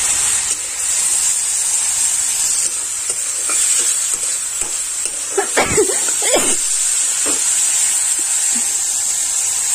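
Chopped tomatoes and onions sizzling in hot oil in an iron kadhai: a steady, loud hiss. Near the middle come a couple of brief squeaky sounds.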